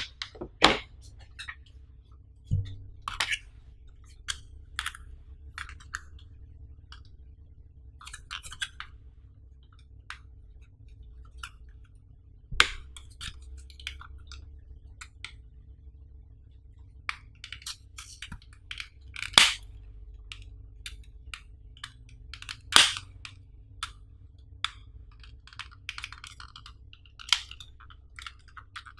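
A clear plastic blister pack being handled and peeled open by hand: scattered crackles and sharp clicks of stiff plastic, with a few louder snaps, over a low steady hum.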